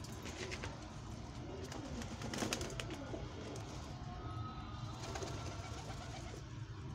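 A flock of Madrasi pigeons cooing, loudest about two to three seconds in, with scattered light clicks of beaks pecking at grain.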